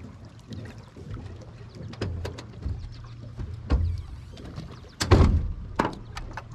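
Knocks and thumps on an aluminum boat's deck and hull as a person moves about on it. The loudest thump comes about five seconds in, with a sharper knock just after.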